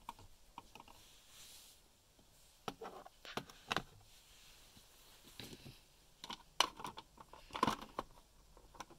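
Small toy figures and mini furniture handled in a toy house: scattered light clicks and knocks as the figures are fitted into their beds, in a cluster about three seconds in and another about seven seconds in.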